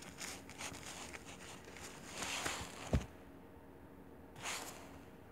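Soft rustling from a toy baby doll and its clothes being handled close to the microphone, with one dull thump about three seconds in and a short rustle near the end.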